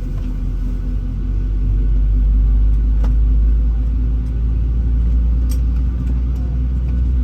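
Cabin noise inside a Boeing 737-800 on the ground before takeoff: a steady low rumble with a hum, swelling about two seconds in, and a few faint clicks.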